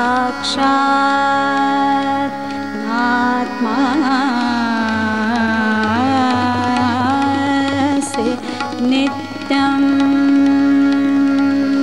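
Live Hindustani classical accompaniment: a harmonium holds steady tones over tabla, while a melodic line bends and wavers through the middle before the steady tones carry on alone.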